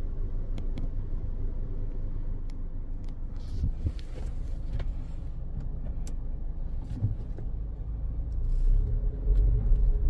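Suzuki Jimny's engine running, heard from inside the cabin as a steady low hum that grows louder near the end as the car pulls away slowly. No seat-belt reminder chime sounds with the rear seat empty and unbuckled.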